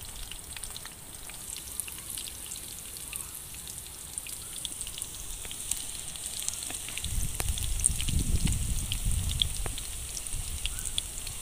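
Batter-coated mantis shrimp deep-frying in hot oil: a steady sizzle full of small crackling pops. A low rumble comes in about seven seconds in and lasts a few seconds.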